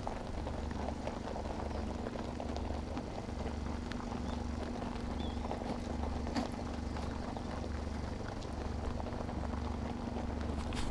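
A crowd of rabbits feeding at close range, with many small crunches, clicks and rustles from nibbling pellets and shuffling in the grass. About six seconds in, a sharper knock as one noses against the camera. Under it all runs a steady low hum.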